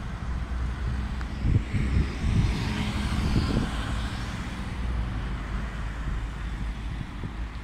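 City road traffic: a bus's engine rumbling low and steady as cars drive past. The noise of a passing vehicle swells about two to four seconds in.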